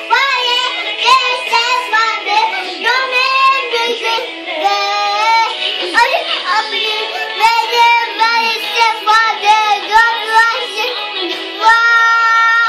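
A small girl singing a song over backing music, her voice bending from note to note and ending on a long held note near the end.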